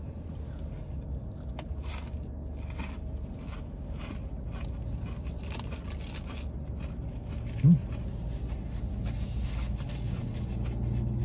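A man chewing a crispy breaded onion ring, with faint crunching, over a low steady rumble of traffic. A brief hummed 'mm' comes about eight seconds in, and the rumble of a passing vehicle grows louder near the end.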